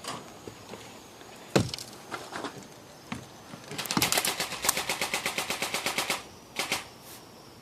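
BB gun firing: a single shot, then a rapid automatic burst of about a dozen shots a second for a little over two seconds, then a couple more quick shots.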